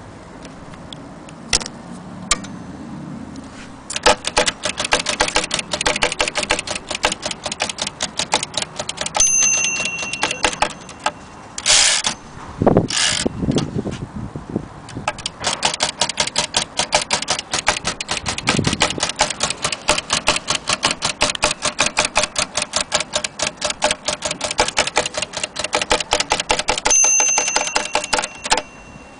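1930 Imperial Companion portable typewriter being typed on in fast runs of key strikes. The margin bell rings near the end of each line, twice, and after the first ring there is a short ratcheting carriage return before typing resumes.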